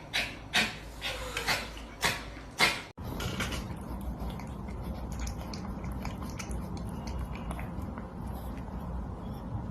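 A dog barking about five times in quick succession, cut off abruptly about three seconds in. After that comes a low steady rumble with faint scattered clicks.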